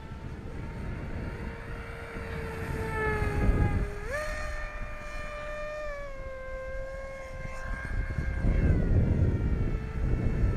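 Radio-controlled flying wing in flight, its motor and propeller giving a steady whine. The pitch dips, jumps up sharply about four seconds in, then eases down and fades before the whine returns near the end.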